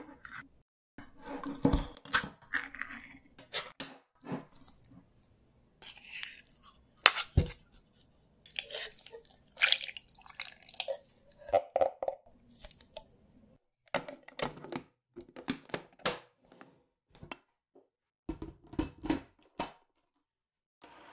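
A pull-tab can of coconut milk is opened, with the ring lifted and the metal lid torn back; a sharp knock about seven seconds in is the loudest sound. Thick coconut milk then plops and glugs out of the can into a plastic blender jar, and near the end the jar clicks and knocks as it is set onto the blender base.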